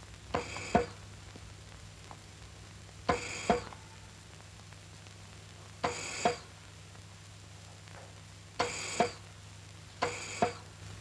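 Film score: a struck, ringing two-note figure that repeats about every three seconds at a steady, measured pace.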